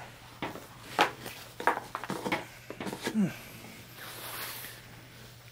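Handling noise from a flat blue chafe-guard hose being worked over the end of a short pipe: a string of light taps and knocks over the first three seconds, then a soft rustle.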